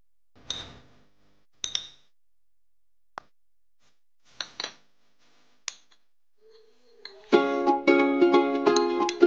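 A few short, sharp clinks of crockery as ingredients are tipped from a plate into a bowl. About seven seconds in, plucked-string background music starts and is the loudest sound.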